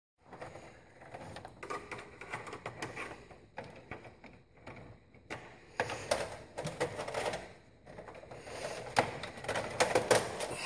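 Irregular clicks, taps and rattles of copper wires and a screwdriver knocking against the breakers and metal enclosure of an electrical panel as wires are worked in, with a denser burst of clicking about two thirds of the way through.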